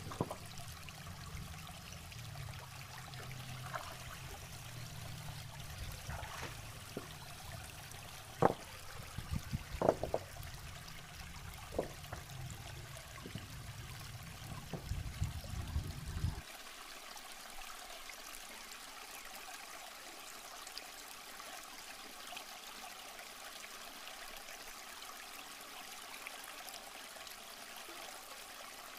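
Shallow river water running steadily, with a few sharp knocks and splashes between about 8 and 16 seconds in as stones are handled in the water. A low rumble underneath cuts off abruptly about 16 seconds in.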